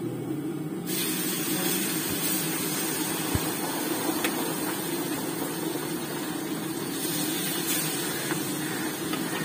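Fish pieces deep-frying in hot oil in an iron kadhai: a steady sizzle that turns brighter and fuller about a second in as the fish goes into the oil.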